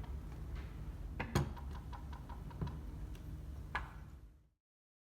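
Light clicks and a few sharper knocks of a plastic seed plate being fitted and locked into a John Deere planter's seed meter, over a low hum; the sound cuts off near the end.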